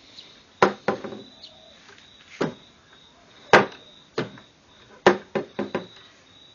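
Hinged wooden lid of a homemade automatic chicken feeder knocking against its wooden frame as it is worked open and shut: a series of sharp wooden knocks, the loudest about three and a half seconds in and several in quick succession near the end.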